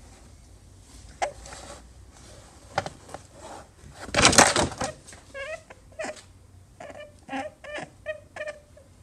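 Domestic rabbit making short, high calls while being stroked: a couple in the first half, then a quick run of them in the second half. A loud rustle about four seconds in.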